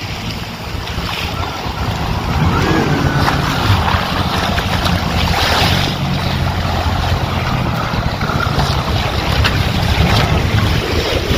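A boat engine running steadily under choppy waves sloshing and splashing, with wind buffeting the microphone.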